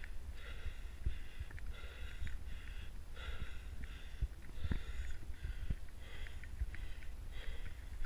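A hiker's rapid, heavy breathing close to the microphone, short hissy breaths in and out about one and a half times a second, over a low rumble of wind buffeting the mic.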